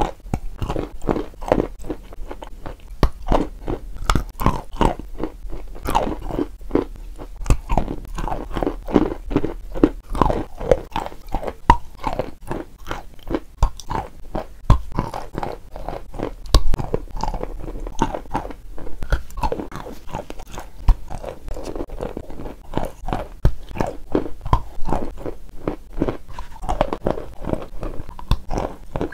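Close-up crunching and chewing of a white chalk block, bitten off in pieces: a steady run of many sharp, brittle crunches a second, with the softer sound of chewing in between.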